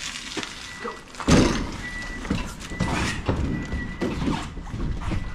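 A heavy thump about a second in, followed by uneven knocking and rumbling.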